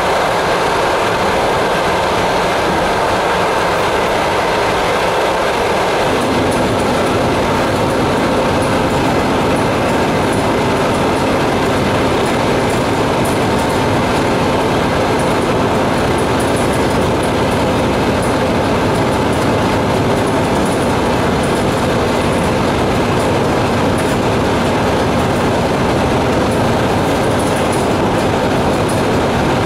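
An ET2M electric multiple unit running along the line, heard on board: a steady rumble and rattle of wheels on the rails. About six seconds in, the low rumble grows heavier and stays so.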